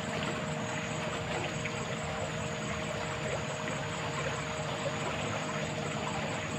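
Steady rush of flowing water, with a faint constant hum running under it.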